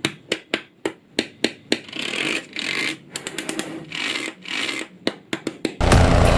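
Small magnetic balls clicking sharply as they snap together, a run of quick clicks with swishing noise in between; music comes in near the end.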